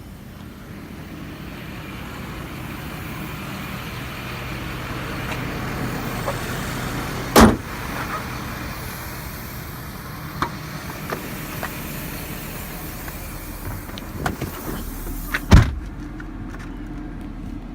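The Ford F550 truck running, with a steady low hum and a hiss that swells over the first few seconds. Two sharp, loud clunks come about seven and fifteen seconds in, with a few lighter clicks between them.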